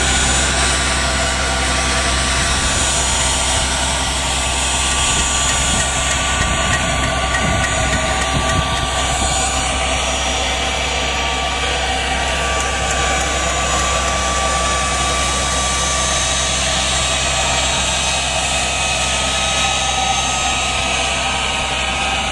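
Tractor engine running steadily, with a low drone and a thin steady whine over it.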